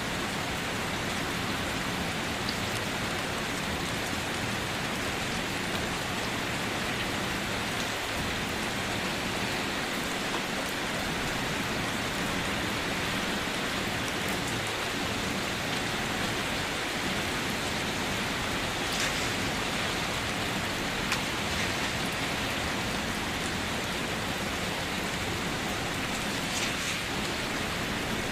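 Light rain falling steadily: an even hiss of rain with a few separate drops ticking now and then.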